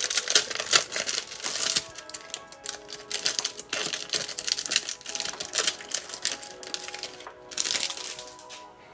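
Trading cards and their pack wrapper being handled, with quick clicks and crinkling as the cards are flipped through. Background music with held notes comes in about two seconds in.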